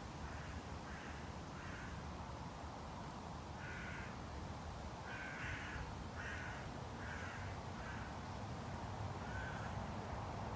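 A crow cawing: a series of short, harsh caws in several bouts, over a steady low city rumble.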